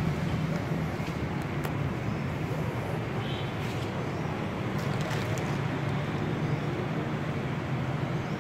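Steady road-traffic rumble with a low hum underneath and a few faint ticks.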